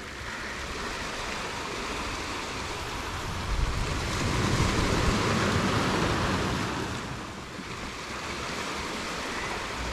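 Ocean surf on the shore: waves breaking and washing in, one swelling louder about three and a half seconds in and easing off by about seven seconds, with wind rumbling on the microphone.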